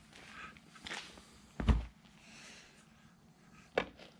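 Footsteps and thumps of someone standing and stepping on a small ATV tire's sidewall to break the bead: two thumps about two seconds apart, the first heavier, with faint shuffling between.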